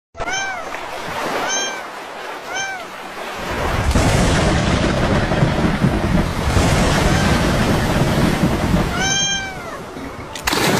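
A cat meows three short times, then a loud thunderstorm of rumbling thunder and rain sets in about three seconds in, and the cat meows once more near the end.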